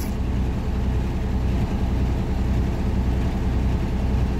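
Detroit DD15 diesel truck engine running steadily at idle during a parked DPF regeneration, a steady low drone heard from inside the cab while fuel is dosed into the exhaust.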